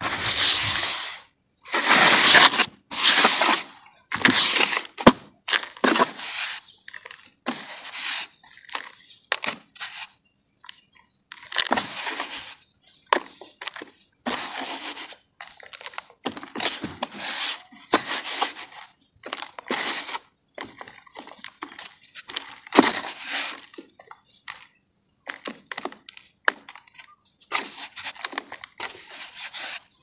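Hands crushing and crumbling lumps of dry red dirt in a basin, with the crunch of breaking clods and the patter of loose earth falling back. It comes in irregular bursts, some brief and some lasting about a second, with short pauses between handfuls.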